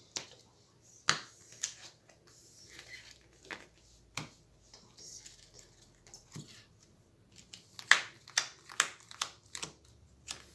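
Playing cards being handled on a table: scattered taps and light snaps as cards are picked up and laid down, with a quicker run of snaps near the end as a deck is gathered in the hands.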